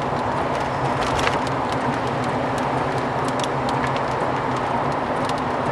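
Steady road noise inside a moving car's cabin: engine and tyres humming at an even level, with scattered light ticks.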